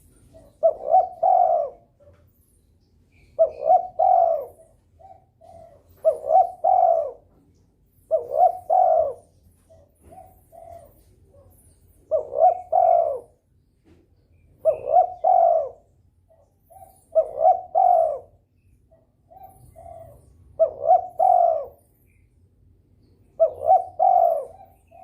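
Spotted dove (derkuku) in breeding condition cooing persistently: a phrase of two or three low coos every two to three seconds, with short single notes in between.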